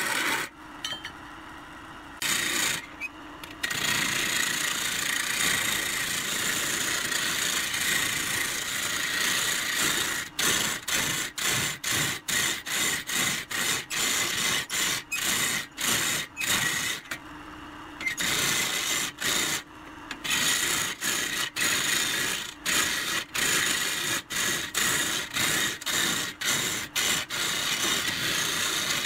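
Turning tool scraping and cutting a spinning pine blank on a wood lathe, a rasping hiss of wood being cut. About ten seconds in it breaks into short strokes, about two a second, as the tool is set to the wood and lifted again.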